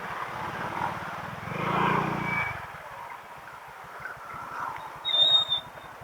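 Honda PCX160 scooter's single-cylinder engine putting along at low speed, its firing pulses steady and even. The engine noise swells louder for about a second around two seconds in. Near the end come two short, high-pitched beeps.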